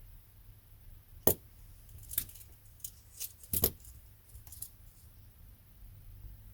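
A few sharp clicks and light metallic taps from small tools and parts handled on a soldering bench. The loudest come about a second in and again past halfway.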